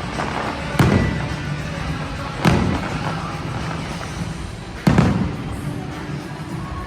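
Fireworks shells bursting: three loud booms, about a second in, at two and a half seconds and near five seconds, each trailing off in a short rumble. Music plays steadily underneath.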